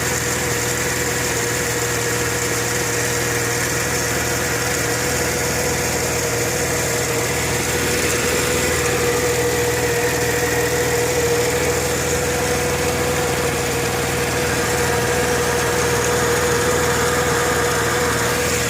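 1998 Mercedes-Benz ML320's V6 engine idling steadily, with a constant whine and a ticking that persist after a fresh oil change. The owner is unsure whether they come from the belt tensioner or from inside the engine.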